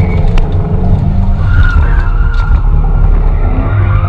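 2013 Dodge Challenger doing a burnout: the engine running hard under a steady low rumble while the tyres squeal and skid, a wavering high squeal over the top.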